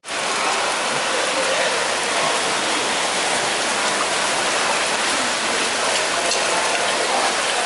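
Heavy rain falling, a steady even hiss that starts abruptly.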